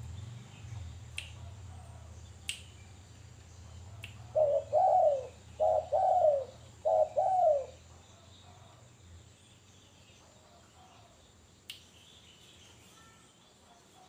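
Spotted dove cooing: three loud coo phrases about four seconds in, each a quick rise and fall in pitch, amid a few sharp clicks.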